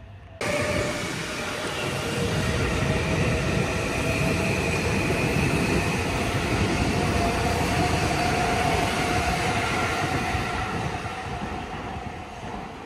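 Electric commuter train, likely on the Seibu Ikebukuro Line, running past close by: a heavy rumble of wheels on rail with a steady high whine over it. It starts suddenly and fades near the end.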